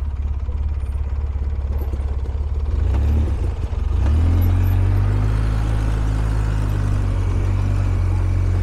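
ATV engine running on the trail, its note rising about four seconds in and then holding steadier and a little louder as it picks up speed.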